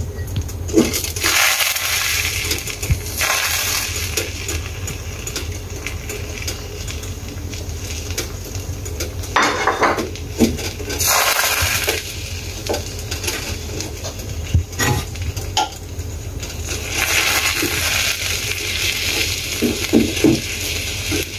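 Beaten eggs sizzling in a hot nonstick frying pan, the hiss swelling and fading several times, with scattered light clinks and knocks of kitchenware.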